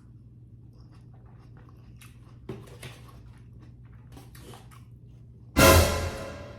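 Close-miked eating sounds as a green-lipped mussel is chewed: soft mouth clicks and smacks. Near the end there is one loud, sudden burst of noise that dies away within about half a second.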